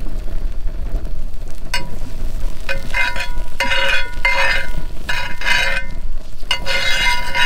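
Fish fillets sizzling in butter in a cast-iron frying pan, over a steady low rumble. From about two seconds in, a pitched sound with several held tones comes and goes over it.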